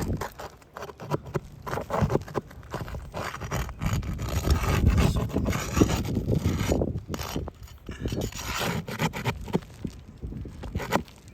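Irregular scraping and rubbing as wind-damaged asphalt roof shingles are worked loose and lifted, with many small clicks and crackles.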